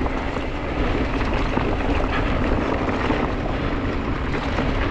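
A camera drone's propellers buzzing in a steady hum, over the rattle and rumble of a mountain bike rolling across rocky trail.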